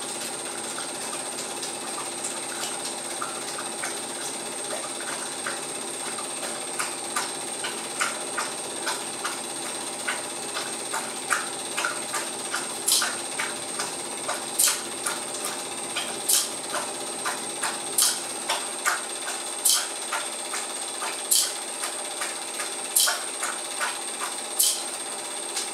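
Cine film projector running: a steady mechanical whir with a thin high whine, a light rattle of small clicks, and from about halfway a sharper click repeating roughly every second and a half.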